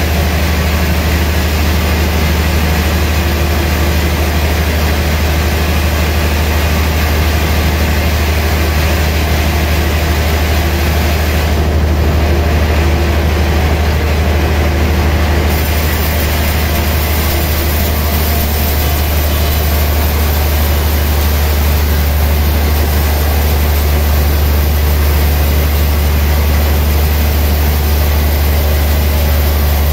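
Vertical band sawmill running with a steady heavy motor hum while its blade cuts lengthwise through a gayam log.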